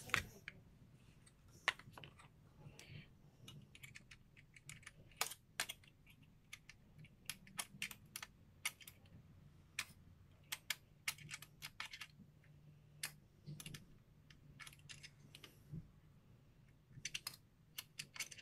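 Small irregular metallic clicks and taps, some in quick clusters, of a screwdriver working the mounting screws of a CPU tower-style cooler on a motherboard.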